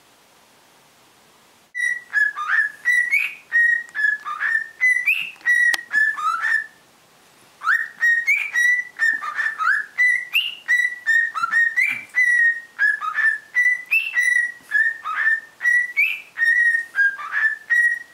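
Cockatiel whistling a tune it is still learning: a long string of short whistled notes around one pitch, with quick rising and falling slides between them. It starts a little under two seconds in and breaks off briefly about seven seconds in before carrying on.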